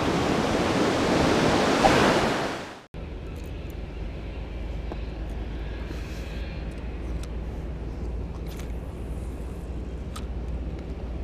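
Surf breaking on a beach with wind on the microphone for about three seconds, then an abrupt cut to a much quieter, steady low rumble with a few faint clicks.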